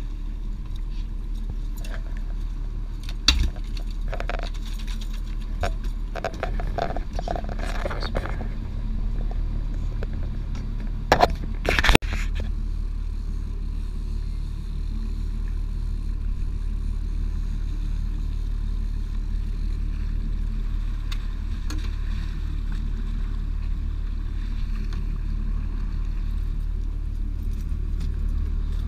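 Fishing boat's engine running with a steady low drone, with a few sharp knocks and rattles of gear on deck, the loudest about 11 to 12 seconds in.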